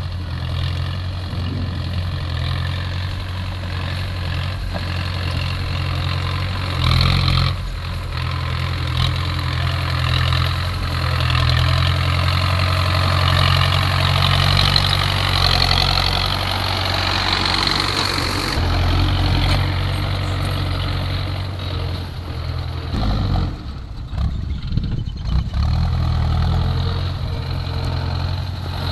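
Diesel engine of heavy earthmoving machinery running steadily. From about seven to eighteen seconds in it turns louder and harsher.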